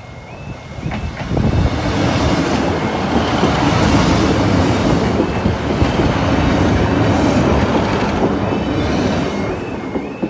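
A Class 153 and Class 156 diesel multiple unit passes over the level crossing: diesel engines running and wheels clattering over the rails. The sound swells about a second and a half in and fades near the end. The crossing's repeating warbling warning alarm is heard at the start and comes back as the train noise dies away.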